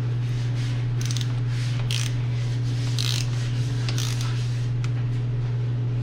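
Torque wrench, preset to 20 foot-pounds, ratcheting as it tightens a motorcycle's rear axle pinch bolt, in short strokes about once a second, over a steady low hum.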